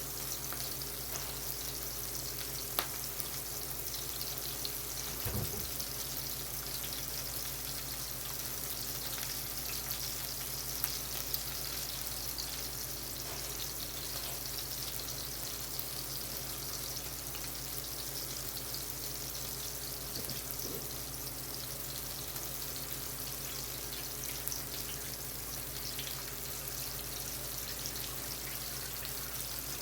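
Meatballs frying in olive oil in a skillet, a steady sizzle with a few small crackles, over a low steady hum.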